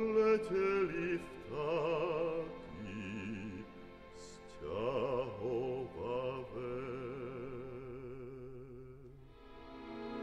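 Classical art song: a singer sings a slow line with wide vibrato over a sustained accompaniment. Near the end the voice stops and the accompaniment goes on alone with steady held notes.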